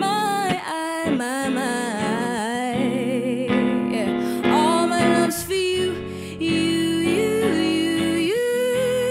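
A woman singing wordless, wavering vocal runs and then longer held notes over a guitar accompaniment.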